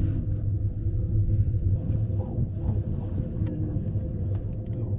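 Aerial ropeway cabin running along its cable, heard from inside the cabin: a steady low rumble with a faint constant hum above it and a few light ticks.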